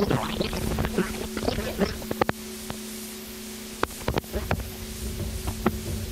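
Experimental tape music: a steady low two-note drone under scattered clicks and crackles, busy and chattering for the first two seconds, then thinning to a few isolated sharp clicks.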